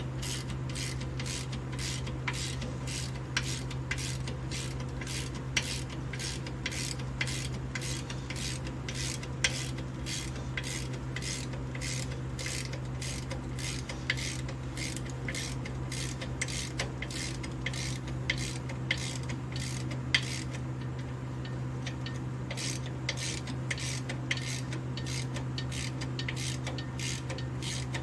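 Hand ratchet wrench clicking at an even pace, about two clicks a second, as bolts are run in, over a steady low hum.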